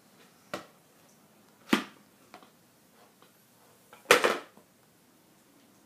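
Hard plastic cat toy clacking as a cat paws at it: a few short, sharp knocks, the loudest a quick double clatter about four seconds in.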